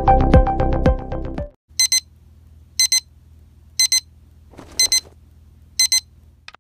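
Electronic music ends about a second and a half in. A digital alarm clock then beeps five times, each a short high double beep, about once a second, over a faint low hum, with a brief rustle near the fourth beep.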